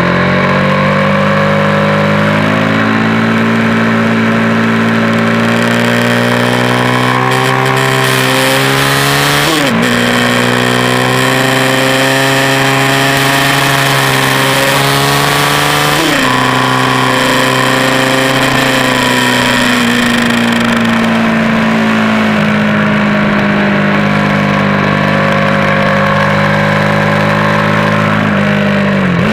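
Track motorcycle's engine at high revs under hard acceleration, its pitch climbing through the gears with two quick upshifts, about ten and about sixteen seconds in. The revs then fall slowly, and near the end drop with a downshift. Wind rushes over the microphone at speed.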